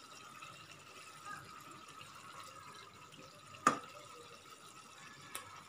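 Stuffed brinjals being turned with a spatula in a nonstick pan of simmering masala gravy, with faint wet bubbling and stirring. A sharp clack of the spatula against the pan comes about three and a half seconds in, and a lighter tap near the end.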